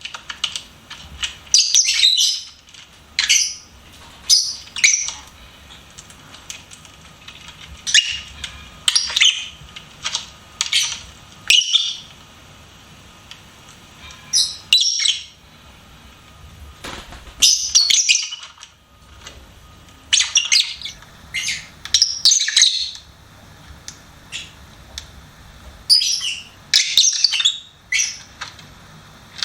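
Lovebirds chirping: short bursts of high-pitched chirps every second or two, broken by a few quiet gaps of a couple of seconds.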